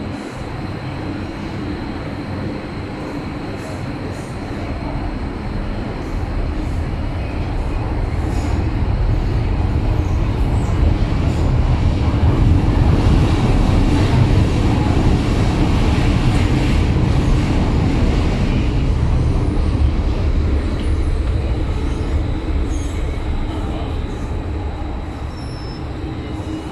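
MTR Kwun Tong Line M-Train heard from inside the car while running, with steady wheel and running noise and a thin high whine. The noise builds to its loudest about halfway through, then eases off as the train slows toward the next station.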